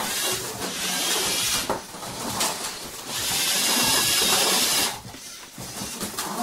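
Small electric motors and plastic gearing of Lego combat robots whirring as they drive and shove each other, in two long stretches, with clicks and knocks of plastic parts near the end.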